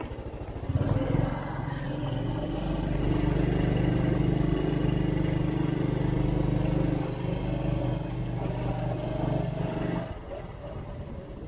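Motorcycle engine running under throttle as the bike rides along. It gets louder about a second in, holds steady, and drops off about a second before the end.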